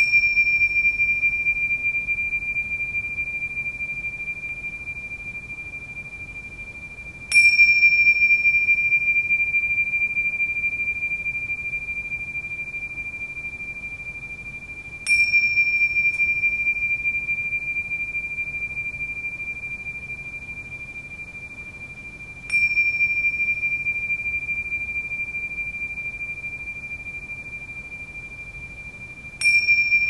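Tingsha cymbals struck together five times, roughly every seven to eight seconds. Each strike is a bright clash that leaves one clear, high, steady ringing tone slowly fading away until the next strike.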